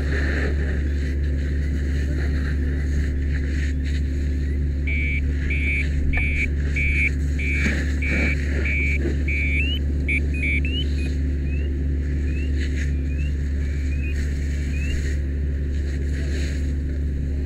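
Steady low engine drone, as of a fire engine running at pump while a fire hose flows. About five seconds in, high electronic beeps start at roughly two a second, then turn into short rising chirps spaced a little under a second apart.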